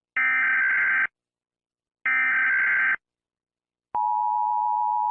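Emergency Alert System tones: the last two of three SAME digital header bursts, each a shrill data warble about a second long with a second of silence between, then the steady two-tone EAS attention signal starting about four seconds in. Together they mark the start of a new emergency alert.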